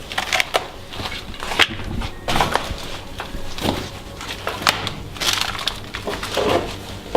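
Footsteps crunching and scraping over debris underfoot, an irregular series of crunches.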